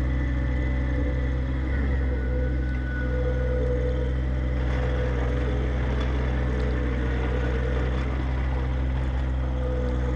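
John Deere 1025R subcompact tractor's three-cylinder diesel engine running steadily.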